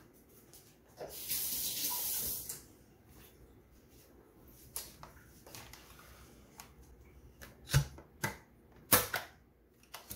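Ninja blender pitcher handled and set down on a stone countertop: a few sharp knocks in the second half, the loudest two about a second apart. Earlier, a brief hiss lasting about a second and a half.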